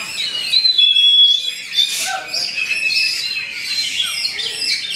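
Oriental magpie-robin (kacer) singing a fast, unbroken song of clear high whistles mixed with harsh, rasping notes.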